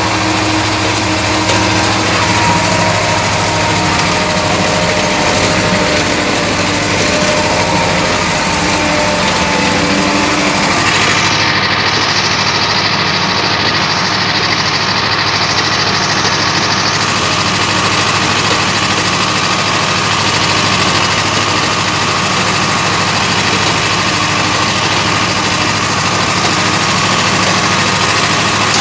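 Farm tractor's diesel engine running steadily under load, heard from the driver's seat as it pulls a ridger through potato rows. The sound changes character about eleven seconds in.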